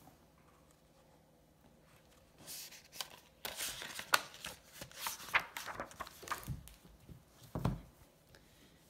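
Pages of a hardcover book being turned and rustled by hand, starting after a couple of quiet seconds. Two soft thumps near the end come as the book is handled.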